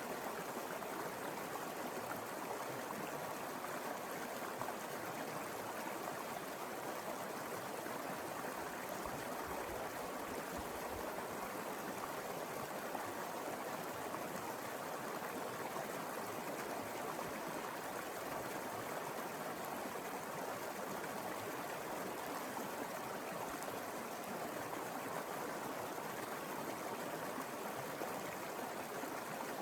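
A mountain river flowing over rocks: a steady, even rush of water.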